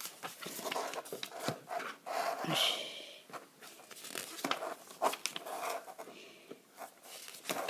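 Pages of a glossy booklet being turned and handled, irregular paper rustles and rubbing with soft clicks.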